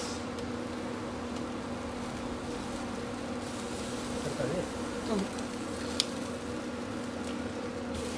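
A steady low hum with an even pitch, and a single sharp click about six seconds in.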